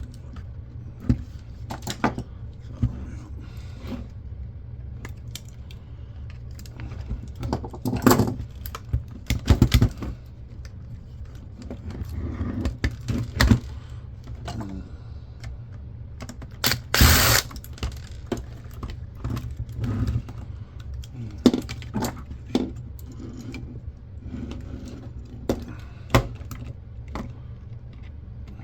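Scattered clicks, taps and small metal clatter of hand tools, screws and plastic parts as an old camcorder is taken apart. A steady low hum runs underneath, and a louder noise lasting about half a second comes just past the middle.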